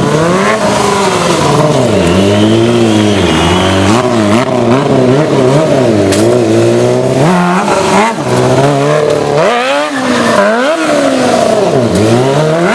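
Sport motorcycle engine revving up and down over and over as the rider works the throttle to hold wheelies.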